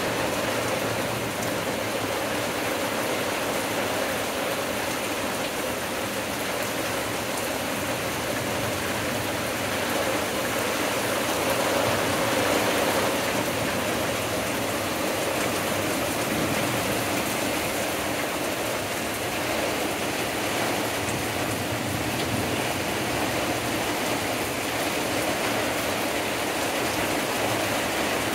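Heavy rain pouring steadily onto leafy trees, a dense even hiss that swells slightly about halfway through.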